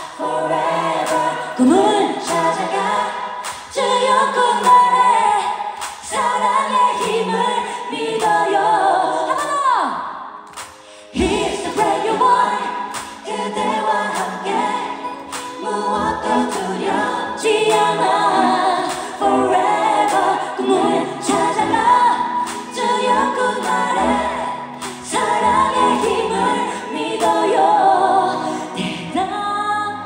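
Live pop concert music: a woman singing over a band with a steady beat. The music drops away briefly about ten seconds in, then comes back in full.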